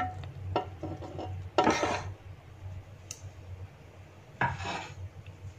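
Metal spoon scraping and clinking against a metal cooking pot as cooked rice is scooped out, with two louder scrapes, one about one and a half seconds in and one near the end.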